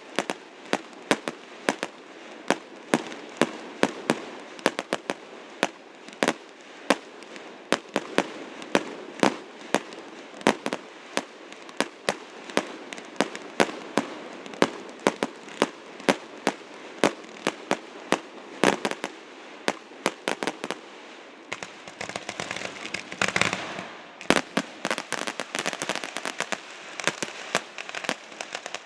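Aerial fireworks finale: a steady string of sharp shell bursts, about two bangs a second, with crackling between them. About 22 seconds in, the bursts turn into dense crackling salvos.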